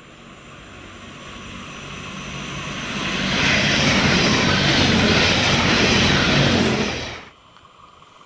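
DSB passenger train approaching and passing at speed: a rushing noise with a low steady hum underneath grows louder for about three seconds, holds loud for about three more, then cuts off suddenly near the end.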